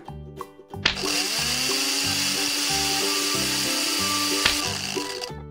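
Electric blender whirring as it blends banana and orange into juice: it spins up to speed about a second in, runs steadily, and cuts off just before the end. Children's background music plays underneath.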